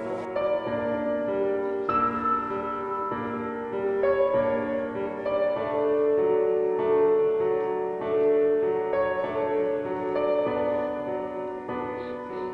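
Background music: a slow, gentle piano piece with sustained notes and chords.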